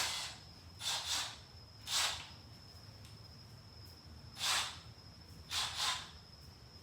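A sharp click, then four short rustling, scraping handling noises spaced a second or two apart, as things are moved while searching for fasteners. A faint steady high-pitched whine runs underneath.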